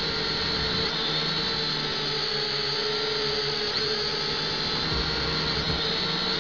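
Potensic F183DH quadcopter's motors and propellers whining steadily in flight, picked up close by the drone's own onboard camera microphone. The high-pitched tone wavers slightly in pitch.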